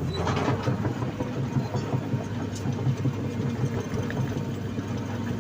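Hydraulic excavator's diesel engine running steadily with a low throb.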